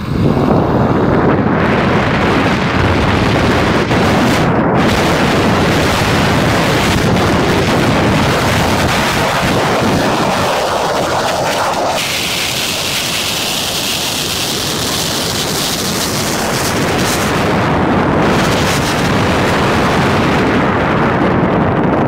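Loud wind buffeting the microphone of a camera on a moving electric dirt bike: a steady rush with a low rumble and no motor whine showing through. The hiss turns brighter for several seconds past the middle.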